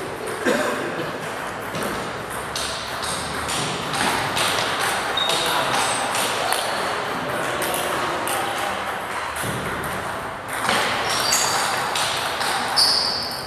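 Table tennis balls clicking off bats and tables in quick, irregular strings of clicks, from rallies on more than one table.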